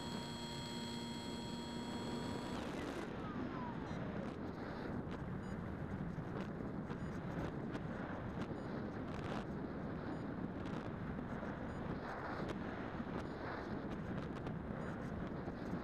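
Electric motor of a Bixler FPV model plane whining steadily, then throttled back about three seconds in, its pitch falling away as it spins down. After that only wind rushing over the onboard camera's microphone as the plane glides.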